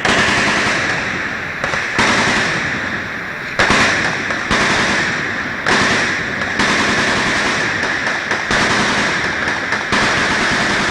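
Massed gunfire from many machine guns and other firearms of various calibers firing at once: a continuous crackle of overlapping shots, with a heavier report every second or two that trails away.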